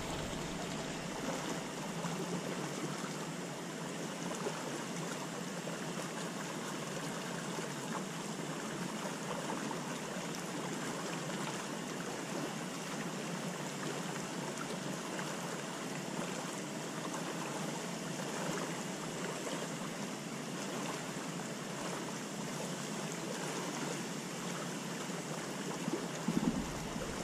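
Steady rush of flowing water where a current of water churns into the river beside the bank. Near the end, wind starts buffeting the microphone with a low rumble.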